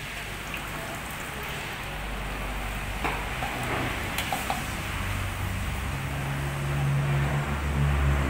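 Noodle-stall kitchen sounds: a steady hiss over the steaming boiling pot, with a few light clinks of utensils. A low engine-like hum grows louder in the second half.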